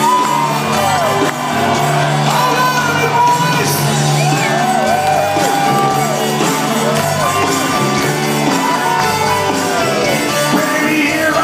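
Live rock concert: the band plays and sings while fans close to the microphone shout and whoop over it.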